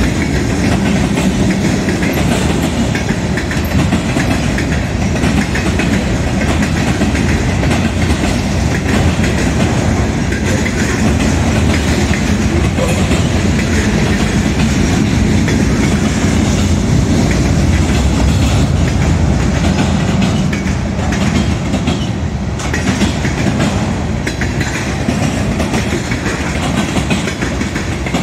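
A CSX freight train's cars rolling past close by: a loud, steady rumble with the rapid clatter of steel wheels on the rails.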